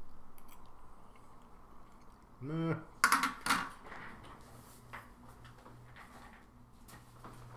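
A few sharp, noisy spits a moment after a short "Nah": a bite of an unidentified sardine organ, which the taster takes for liver, is spat back out. A faint steady low hum runs underneath.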